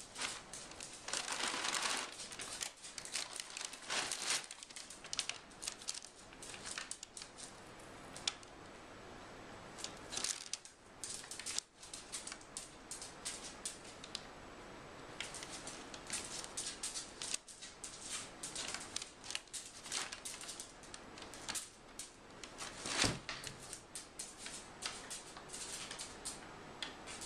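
Crumpled brown paper bags crinkling and rustling in irregular bursts as a cat moves around on them inside a cardboard box, with one sharp knock about three-quarters of the way through.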